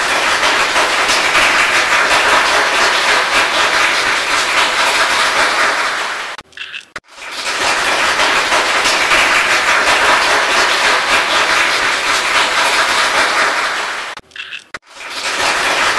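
Clattering, hissing film-projector sound effect, in two stretches of about six seconds with a short break after each.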